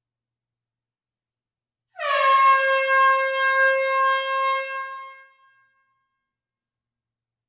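A single loud horn-like note, dipping slightly in pitch as it begins, held for about three seconds and then fading out, against complete silence with no road or engine noise.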